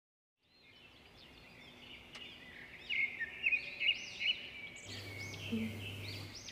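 Birds chirping: many short, high chirps repeating over one another, fading in after about a second of silence. A faint low hum comes in near the end.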